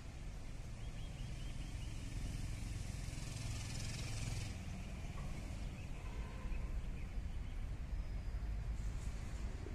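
Outdoor background noise: a steady low rumble, likely wind on the microphone, with a short run of faint repeated chirps about a second in.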